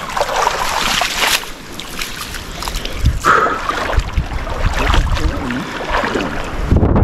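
Shallow muddy water sloshing and splashing as people wade and work through it, in uneven surges. From about three seconds in, a low rumbling noise builds up on the microphone.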